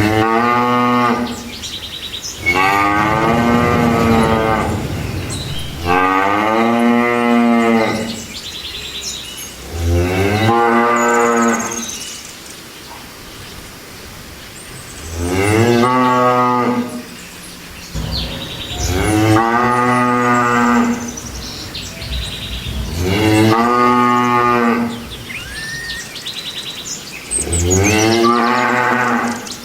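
Cattle mooing: a run of long, loud moos, one about every four seconds, each rising and then falling in pitch. Faint bird chirps are heard in the gaps.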